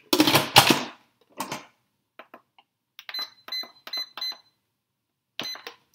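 Electric pressure cooker's control panel beeping as buttons are pressed to set the cooking time to 2 minutes on high: four short beeps in quick succession, then one more near the end. Before them, a couple of loud clatters in the first second or so.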